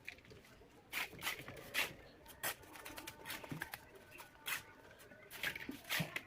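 Bricklaying work: irregular sharp taps and scrapes of tools on brick and mortar, about seven distinct clicks spread unevenly.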